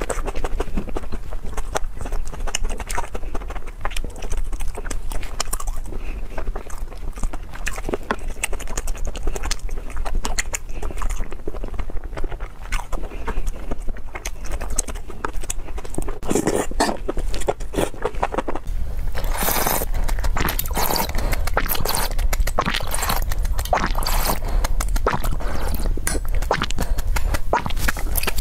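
Close-miked eating sounds: chewing and slurping of spicy food, with irregular wet mouth clicks and smacks. About two thirds of the way through, the sound turns crisper and brighter.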